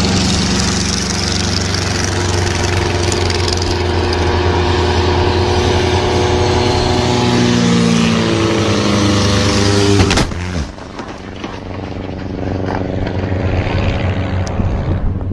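Light aircraft engine running hard, a steady drone of several pitches with some sliding about eight seconds in. A sharp crack comes about ten seconds in, after which the engine is quieter and then builds again.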